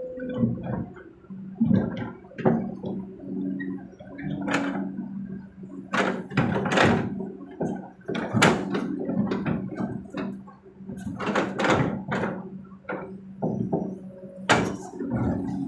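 Kobelco SK200 hydraulic excavator working, its diesel engine running steadily under a string of sharp knocks and clatter as it loads a dump truck.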